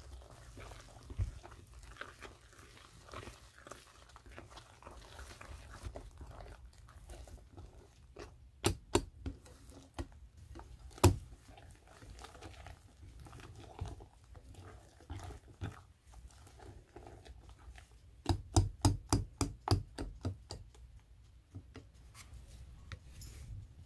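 Wire whisk stirring thick cake batter in a glass bowl: soft scraping and stirring, with sharp clicks of the whisk against the glass, a few near the middle and a quick run of about ten near the end.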